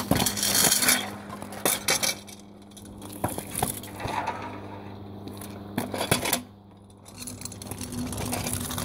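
Metal kick scooters clanking on asphalt: a scattered run of sharp metallic knocks and clatters as they are handled and set down.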